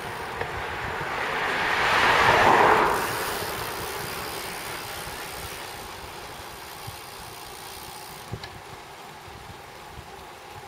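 Wind rushing over the microphone and road rumble from a road bicycle descending at speed, swelling to a loud whoosh about two to three seconds in and then slowly fading.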